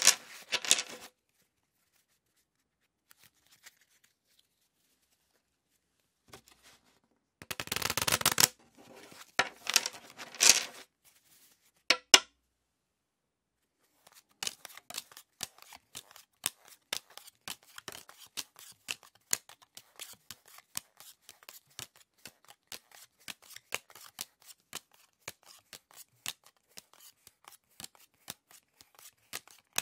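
A deck of playing cards riffle-shuffled in a quick rustling burst, then again in a second run. A single sharp tap follows as the deck is squared, then the cards are dealt one by one as a long run of separate crisp snaps, about three a second.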